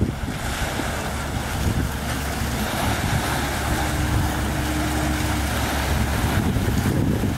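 Fishing netter's diesel engine running with a steady low drone as the boat passes close, mixed with wind on the microphone and the wash of water along the hull. A faint steady whine comes in for a second or two midway.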